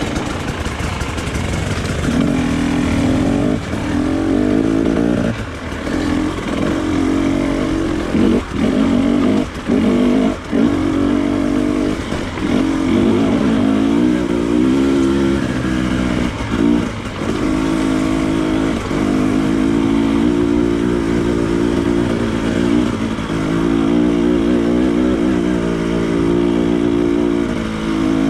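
Off-road motorcycle engine running under throttle while riding, with the throttle shutting off briefly several times before picking up again.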